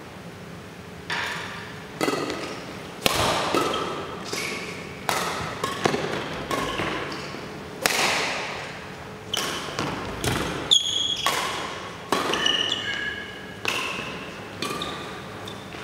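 Badminton rally: racket strings striking the shuttlecock about once a second, each hit echoing in the hall, with short squeaks of shoes on the court floor. The hitting starts about a second in.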